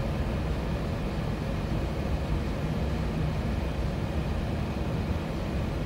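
Steady low rumble of a four-wheel-drive vehicle driving on a snow-packed road, heard from inside the cabin: engine and tyre noise.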